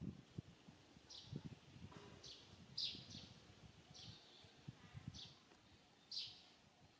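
A bird calling outdoors: about six short, high chirps, each falling in pitch, spaced a second or so apart. Faint low thumps and rustling lie underneath.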